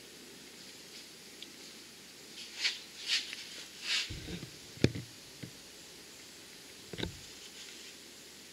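Scattered handling noises against a steady faint hiss: a few brief scraping rustles, then a low thump, a sharp click that is the loudest sound, and another knock a couple of seconds later.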